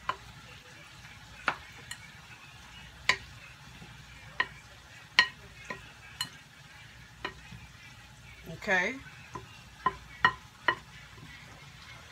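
Wooden spoon knocking against a large glass bowl while dressed pasta salad is tossed: about a dozen sharp, irregular clicks over a faint steady hiss of wet stirring.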